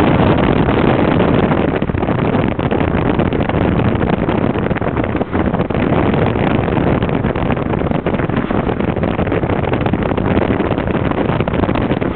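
Steady rush of wind buffeting the microphone, mixed with tyre and road noise from a moving car.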